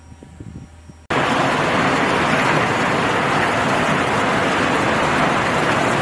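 A rock crushing plant running: a loud, steady, dense din that starts abruptly about a second in, after a faint low hum with a few soft knocks.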